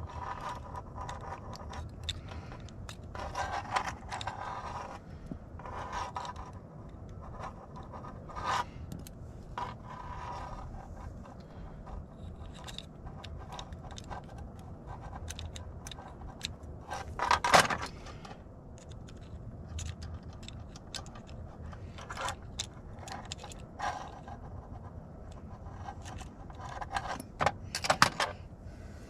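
Small metal parts of a lever-handle lock being fitted together by hand: repeated clicks and scrapes, with a louder clatter midway and another pair near the end.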